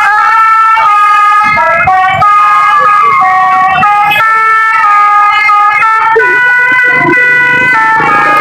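Basuri 'telolet' musical bus horn playing a melody, loud, in held notes that step up and down in pitch with a few short slides between them.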